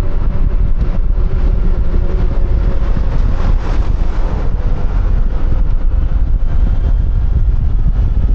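Wind buffeting a helmet-mounted microphone while riding a QJMotor Fortress 160 scooter, with the engine's steady hum and road noise underneath. About three and a half seconds in the noise briefly swells, like another vehicle passing.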